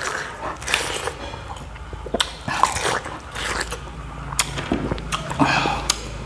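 A person eating close to the microphone: biting and chewing lechon kawali (deep-fried pork), with sharp crunches and mouth clicks scattered irregularly throughout.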